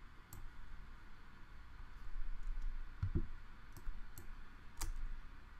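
A few scattered sharp clicks of someone working at a computer, with a duller low knock about three seconds in.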